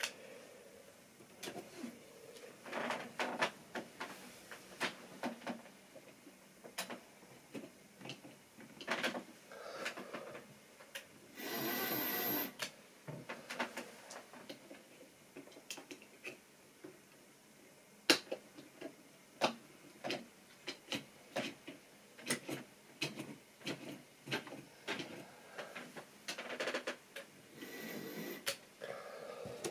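Irregular light clicks and clatter of model railway rolling stock and track being handled, with a short rushing noise about twelve seconds in and one sharper click around eighteen seconds in.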